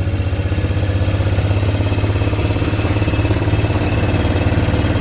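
Engine of a slowly driven vehicle running steadily, a low even throb.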